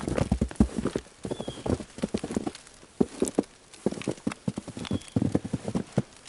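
Footsteps crunching through fresh, deep snow at a walking pace, a dense run of crisp crunches.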